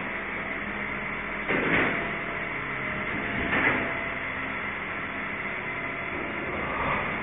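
Municipal refuse collection truck working: its engine and waste-collection machinery run steadily, with two brief louder mechanical surges about one and a half and three and a half seconds in.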